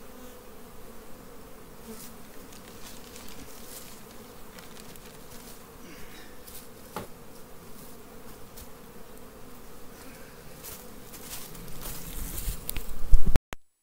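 Carniolan honeybees buzzing steadily around an open hive during an inspection. Near the end a loud low rumble swells up on the microphone and breaks off abruptly.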